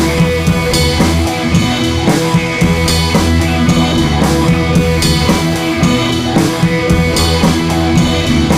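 Music with drums and guitar over a steady beat.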